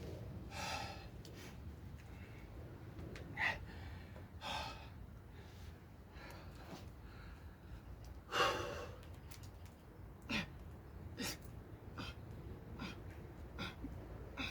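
A man breathing hard through push-ups: a string of forceful exhales and gasps at uneven intervals, the loudest a little past halfway, the later ones short and sharp.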